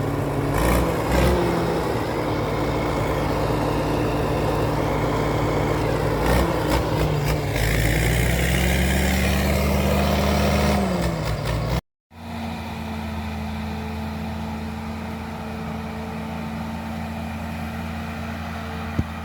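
A motor vehicle engine running steadily, rising in pitch and falling back about two-thirds of the way through. After a sudden break, a steady engine drone follows.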